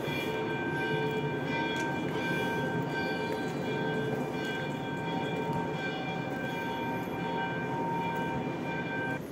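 Large ceiling fan running: a steady hum of several held tones over an even rush of air.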